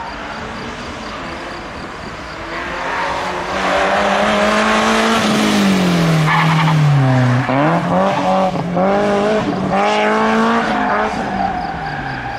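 BMW E30 318iS's four-cylinder engine revving hard as the car slides through the course, with tyres squealing. The engine note grows louder as it approaches, drops low about seven seconds in, then rises and falls several times in quick succession as the throttle is worked mid-slide, before fading away.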